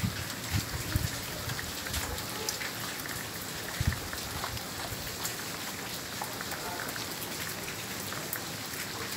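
Heavy rain falling steadily: an even hiss with many small sharp drop hits. A few dull low thumps come in the first four seconds, the loudest about four seconds in.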